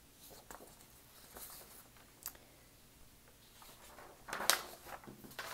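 Sheets of printer paper being handled and shuffled: a few soft rustles, then a louder rustle about four seconds in as the pages are moved.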